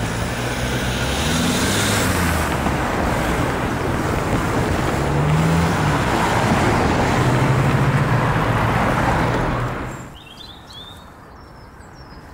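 Cars driving over a level crossing close by, with tyre noise and engine hum swelling as they pass. This ends abruptly about ten seconds in, leaving a much quieter background with a few faint high chirps.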